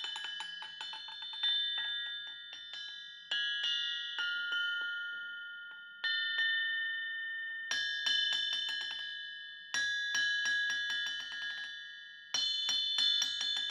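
396 lb Refflinghaus cast steel anvil struck with a hammer about seven times, every one to three seconds. Each blow is followed by a quick run of fading bounces and a clear, high, bell-like ring that hangs on, the sign of a hard, sound face with strong rebound.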